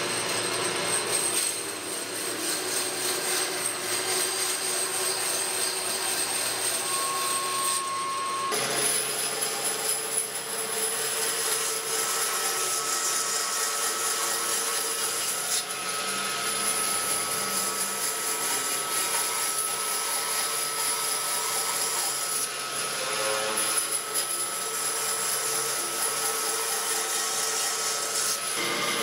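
Band saw running and cutting through a thick square block of wood: a steady high machine whine with the rasp of the blade in the wood. The sound changes abruptly about eight seconds in.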